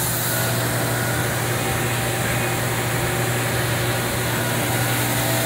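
Buick 430 V8 idling steadily, picked up close to the engine.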